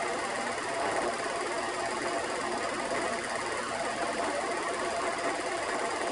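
Home-movie film projector running: a steady mechanical noise with faint steady tones and no change throughout.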